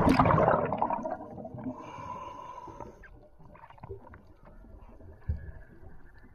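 Underwater sound heard through a camera's housing: a dense bubbling, gurgling rush at the start that fades within about a second and a half, then faint clicks and low knocks in the water.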